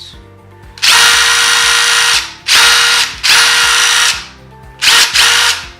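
DeWalt DCF887 20-volt brushless impact driver triggered four times, each run lasting about half a second to a second and a half, with a steady high whine.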